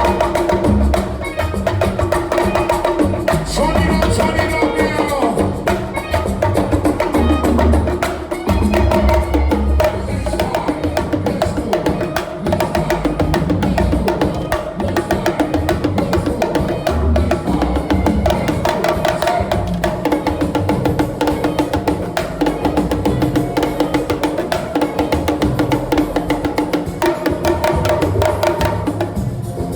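Loud music with dense, fast percussion and deep bass, played through a DJ's sound system during a sound check.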